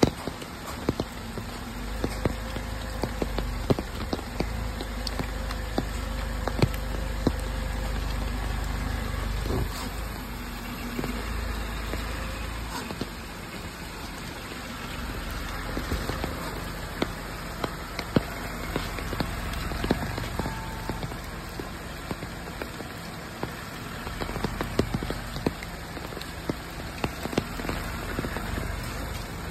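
Rain pattering, with frequent sharp drips landing close by. A low rumble sits beneath it from about two to thirteen seconds in, and again near the end.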